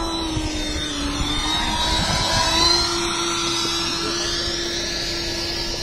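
Small camera drone's electric motors and propellers humming at a steady pitch that dips and rises slightly, with wind rumbling on the microphone.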